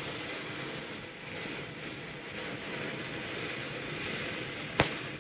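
Ground fountain firework spraying sparks with a steady hiss, and one sharp bang near the end.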